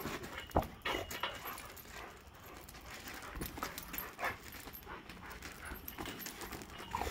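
Two boxer dogs playing tetherball on gravel: paws scuffling on the loose stones and dogs panting, with a few sharp knocks scattered through.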